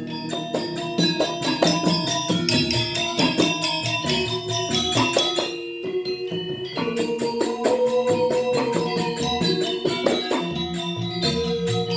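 Balinese gamelan Semara Pagulingan playing: fast, even strokes of bronze metallophones and gong chimes over held ringing tones. The music eases briefly about six seconds in, then picks up again.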